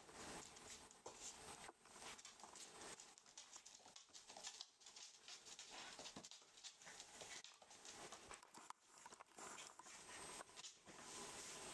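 Rough collie puppies scuffling at play: faint, irregular clicking and pattering of paws and claws on a hard floor.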